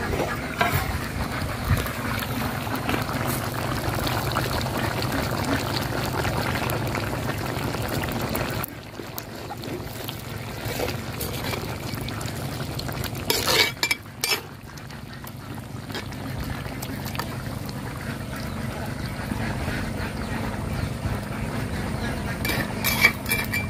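Fish curry boiling in an open clay pot over a wood fire: a steady bubbling that grows quieter after about nine seconds. A few sharp clicks come about halfway through.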